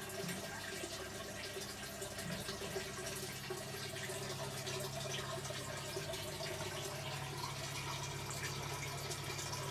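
Water trickling steadily, over a low, steady hum that gets a little stronger about three seconds in.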